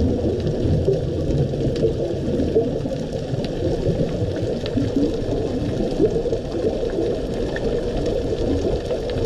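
Underwater ambience picked up by a camera in a dive housing: a steady, muffled low rumbling wash of water with a few faint clicks.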